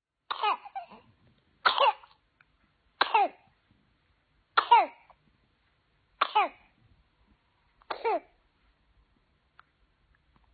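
Newborn baby coughing from whooping cough (pertussis): six separate coughs about one and a half seconds apart, each falling in pitch.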